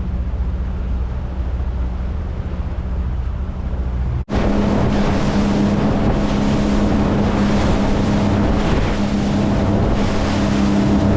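Boat motor running steadily, with water and wind noise on the microphone. About four seconds in the sound breaks off abruptly and comes back louder and hissier.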